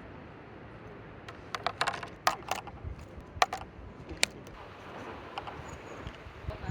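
A quick run of sharp, light clicks and taps of small hard objects handled close to the microphone, bunched between about one and four seconds in, over a steady faint hiss.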